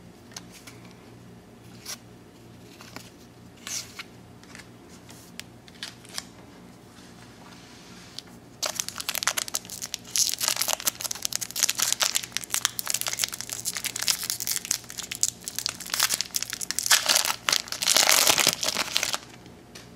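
A baseball card pack's wrapper being torn open and crinkled by hand, a dense crackling rustle that starts about nine seconds in and stops just before the end, after a few light taps.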